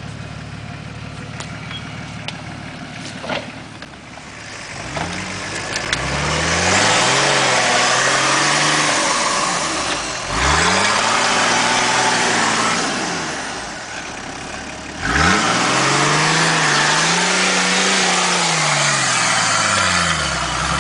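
Nissan Patrol GR Y60's 2.8-litre straight-six turbodiesel working off-road: lower running with scattered knocks and clicks for the first few seconds, then revving up and dropping back three times. Each rev carries a loud rushing noise.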